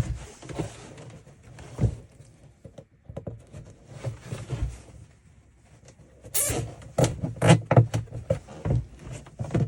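Zip ties being worked through drilled holes in a split plastic Roughneck trash can: irregular light knocks and thumps of the plastic being handled, quieter around the middle, with a brief rasp about six seconds in followed by a cluster of knocks.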